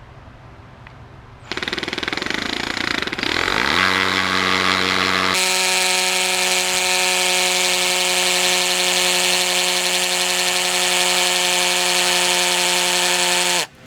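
Power drill boring into a concrete floor with a 1/2-inch masonry bit: it starts about a second and a half in, the motor rising in pitch as it comes up to speed, then runs steadily and loudly and stops abruptly near the end.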